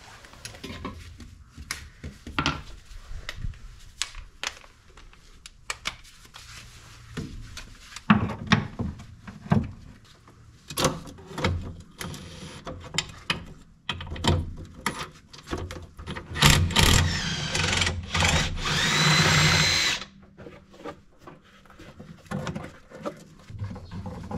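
Metal tools clicking and knocking while the shock absorber bolts are undone, then a power tool runs steadily for about two seconds near the end, spinning out a bolt.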